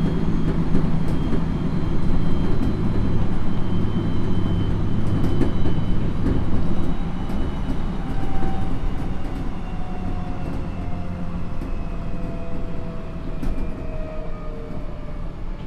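Odakyu 1000 series electric train's Mitsubishi GTO inverter whining over the rumble of the wheels on the rails. From about halfway through, several tones glide slowly downward together while the rumble eases, as the train slows.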